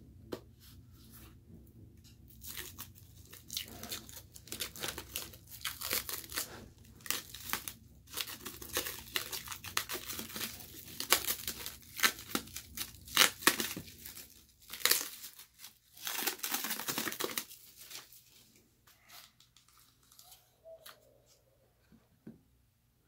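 Clear plastic wrap and tape being torn and peeled off a cardboard blade sleeve. The crinkling and tearing are densest through the middle and thin to a few light rustles near the end.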